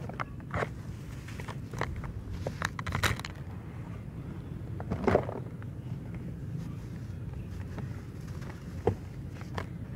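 Dry, crumbly soil being crumbled by hand and sifting down onto a loose pile: soft gritty rustling with scattered crackles of small clods and grit, the loudest about five seconds in. A steady low rumble runs underneath.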